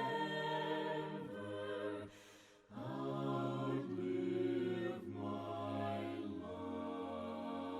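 A cappella hymn singing by several voices in harmony: long held chords, with a short pause for breath about two seconds in.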